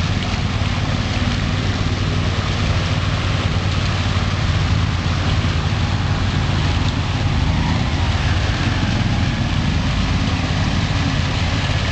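Amphibious 6x6 ATV engine running steadily: a constant low drone with a noisy wash over it that holds level throughout.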